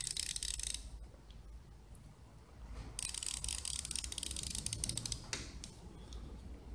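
Refrigerator defrost timer's gear train ratcheting as its shaft is turned by hand, a rapid run of tiny clicks in two stretches with a pause between. The timer is being advanced by hand toward the click where it switches from compressor to the defrost heater.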